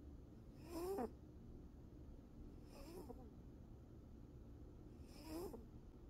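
Sleeping tabby cat snoring: three short snores about two seconds apart, one with each breath, each rising in pitch, the first the loudest.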